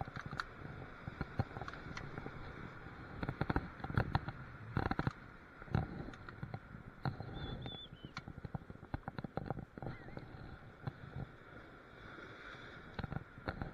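Irregular knocks, clicks and rustling of varying strength over a steady background hiss.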